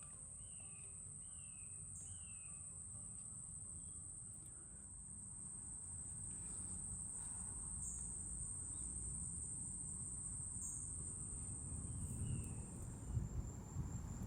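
Insects trilling: one steady, high-pitched drone that stops just before the end. A few short falling chirps come at the start and again near the end, over a low rumble that grows louder from about the middle.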